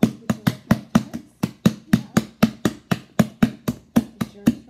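Hands slapping and chopping down onto a big mound of foam slime in quick, even succession, about four slaps a second.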